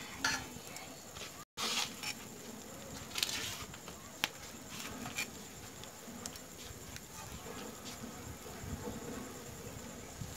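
Pork pieces sizzling on a hot stone slab over a wood fire, a steady hiss broken by scattered sharp clicks and taps as more pieces are laid on.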